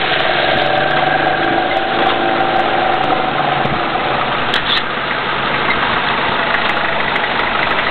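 A vehicle engine idling steadily, with a faint steady hum of a few tones through roughly the first half.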